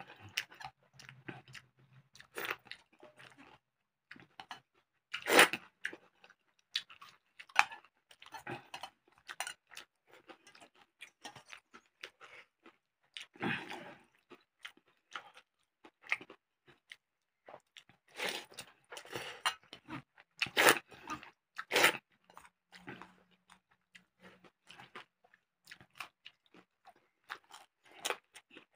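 Close-miked mukbang eating of watered rice (pakhala bhat) with crunchy side dishes: irregular crunching bites and chewing throughout. The loudest crunches come about a fifth of the way in and in a cluster past the middle.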